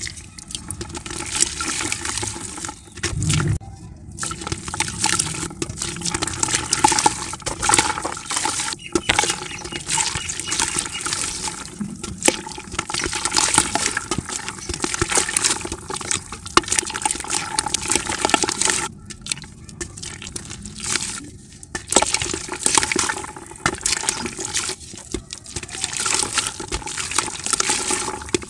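Chunks of dried dirt crushed and crumbled between the hands: a dense crackling and crunching, with crumbs and dust falling into a bucket of water. There are brief pauses between handfuls.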